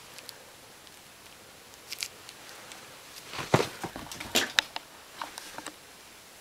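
A cat playing, with scattered light taps, knocks and rustles, busiest from about three to four and a half seconds in.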